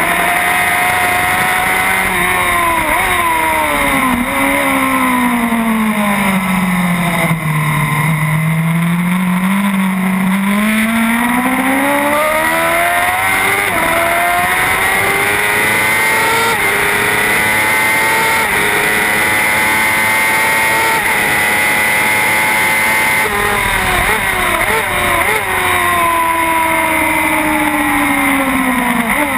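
Racing motorcycle engine heard from its own onboard camera: the revs drop through several quick downshifts to a low point in the first few seconds, then climb steadily and step up through the gears, hold high revs, and fall again through a string of downshifts near the end. Wind rushes on the camera throughout.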